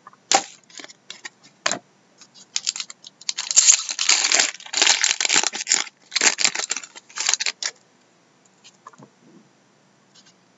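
Foil wrapper of a trading-card pack being torn open and crinkled, in dense crackling bursts through the middle, after a few sharp clicks of cards being handled.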